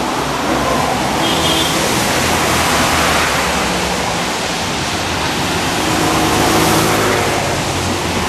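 Cars and vans driving past one after another on a wet road, their tyres hissing on the wet asphalt under the engine noise; the hiss swells as vehicles pass close, about three seconds in and again near the end.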